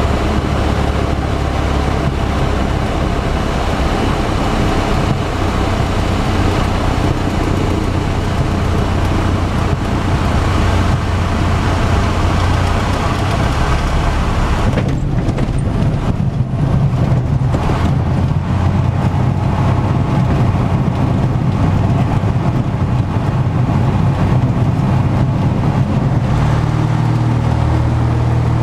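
Cessna 170's six-cylinder Continental engine and propeller heard from inside the cockpit through a sandbar landing: a steady drone with airflow hiss. About halfway through the hiss falls away as the plane slows on the sand, and near the end the engine note steps up as power is added.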